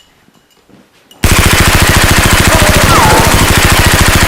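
Rapid automatic gunfire, a single long, very loud burst of evenly spaced shots that starts suddenly about a second in.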